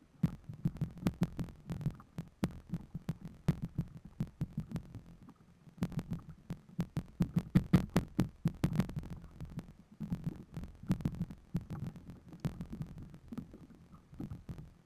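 Irregular low knocks and thumps, several a second, from a small wooden canoe rocking on choppy water with waves slapping its hull. The knocks come thickest in the middle and again about ten seconds in.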